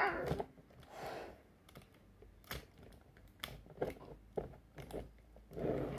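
Sharp plastic clicks and knocks from a Mattel Yangchuanosaurus dinosaur figure as its bite action and jaw are worked by hand. The clicks come irregularly, roughly every half second.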